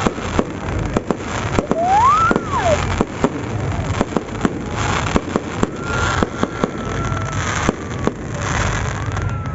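Fireworks going off in a rapid, irregular string of bangs and crackles. A whistle rises and falls about two seconds in, and a long, slowly falling whistle follows later.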